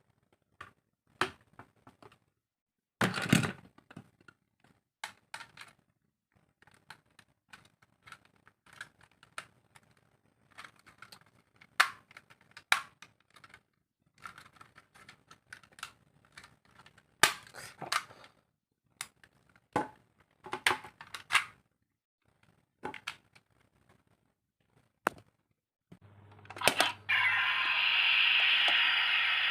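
Hard plastic toy parts clicking and clacking as they are handled, in irregular single knocks and quick clusters. Near the end a loud steady hiss runs for about three seconds.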